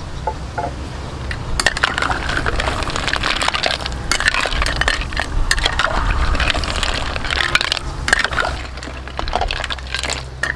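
Snail shells clattering and knocking against each other and the stainless steel pot as a ladle stirs them through thick curry: a dense run of clicks and knocks, starting about a second and a half in and thinning out near the end.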